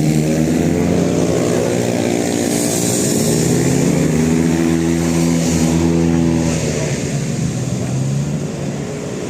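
A motor vehicle's engine passing close by: a loud, steady drone that rises and falls slightly in pitch and eases off near the end.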